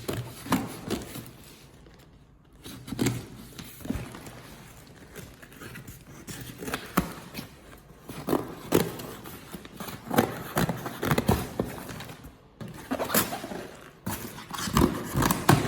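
A cardboard parcel being opened by hand: irregular rustling, scraping and knocks of the box and its packaging being handled, with a few louder knocks near the end.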